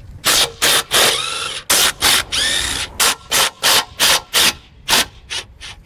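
Cordless power wrench run in short trigger bursts, spinning off 1/2-inch bolts on a lawnmower deck. Two longer runs with the motor winding up and down are followed by a quick string of short pulses, about four a second.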